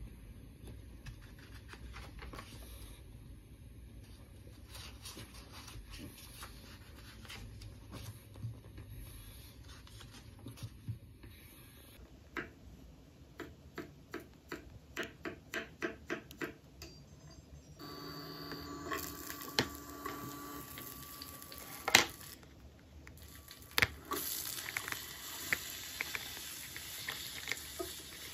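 Quiet desk handling sounds: scattered light clicks and rustles, then a run of about ten light taps, two or three a second, of a stylus with a rubber tip cover tapping a tablet screen. Sharper single clicks follow, the loudest about 22 s in.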